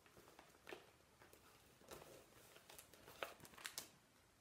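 Faint rustling and crinkling of cross-stitch pattern packets in clear plastic sleeves being handled, with a few soft crackles scattered through.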